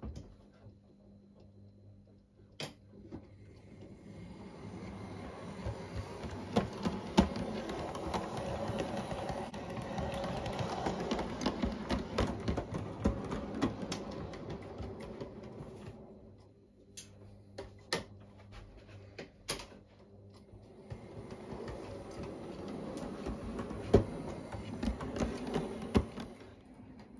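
O gauge model locomotive running on track: the small electric motor whirs and the wheels click over rail joints and points. The sound swells and fades as it moves, dropping away about two-thirds of the way through before picking up again.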